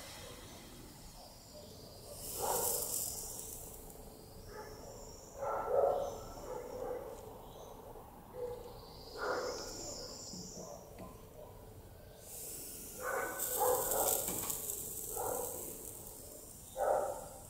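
Red-hot metal ball sizzling as it melts down through a stack of foam kitchen sponges: short, separate bursts of hiss with quieter stretches between them.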